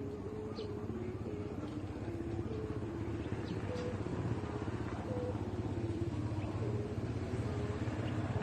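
Thai kite hummer (sanu) with a large rattan-leaf strip, humming in the wind: a steady low drone with a higher tone that steps up and down in pitch as the wind changes.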